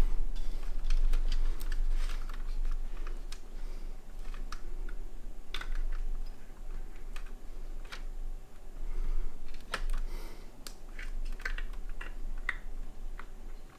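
Irregular small clicks, taps and rattles of computer parts being handled and fitted into a small-form-factor PC case.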